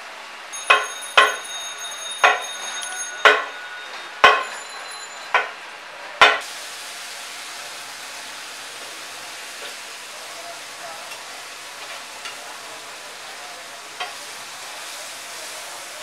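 A run of seven sharp metallic clangs that ring on briefly, over the first six seconds or so. Then a steady sizzle of hot oil as an egg Mughlai paratha deep-fries in a large karahi, with a few faint ticks.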